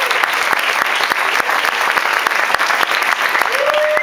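A crowd applauding steadily with dense, irregular clapping, with a few whooping cheers rising near the end.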